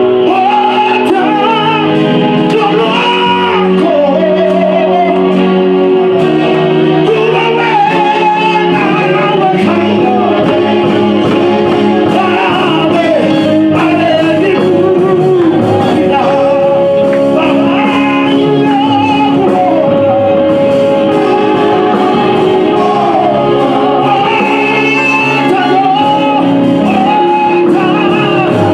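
Live gospel praise and worship singing: a male lead vocalist sings forcefully into a handheld microphone while a group of male and female backing singers answer in harmony over instrumental accompaniment.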